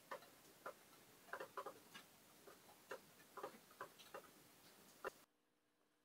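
Faint, irregular small clicks and light rustles from handling a yarn needle and scrubby yarn while weaving in the loose yarn end. The sound stops abruptly about five seconds in.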